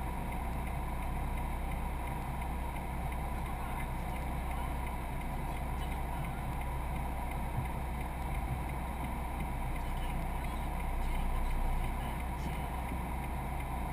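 Steady road noise inside a moving car's cabin: tyre and engine drone with a strong low rumble.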